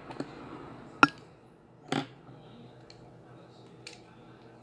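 A few sharp clicks and knocks of small hard objects handled on a desk, most likely colour pencils being picked up and set down. The loudest comes about a second in and another about a second later.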